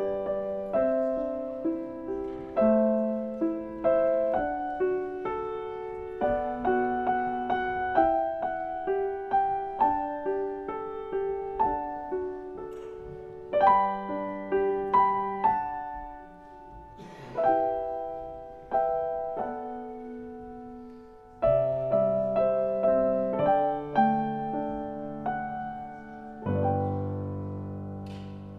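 Grand piano played solo: a gentle melody of separate notes, each ringing and fading, with two brief pauses in the middle. It closes on a full low chord that slowly dies away near the end.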